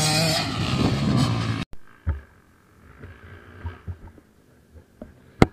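A dirt bike engine running loud under a rush of noise, cut off abruptly about a second and a half in. After that come quiet scattered knocks and bumps of a helmet-mounted camera being handled, with one sharp click near the end, the loudest sound.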